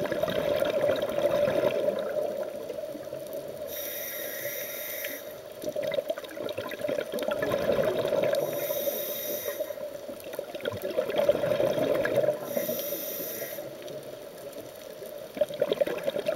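Scuba diver breathing through a regulator underwater: three hissing inhales about four seconds apart, each followed by a long, crackling rush of exhaled bubbles.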